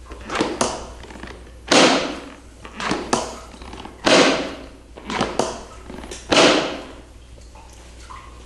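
Chiropractic drop table's pelvic drop section clunking down under the adjustment: six thuds about a second apart, every other one louder. The noise is the table mechanism, not the patient's pelvis.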